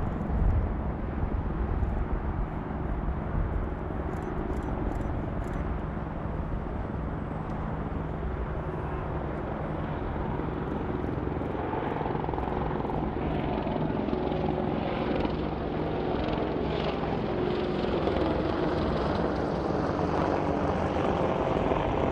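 A formation of seven AH-64 Apache attack helicopters flying in, their rotors and twin turbine engines making a steady hum that grows louder in the second half as they approach.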